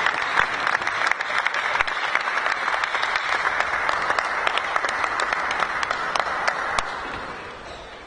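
Audience applauding: dense clapping that fades away near the end.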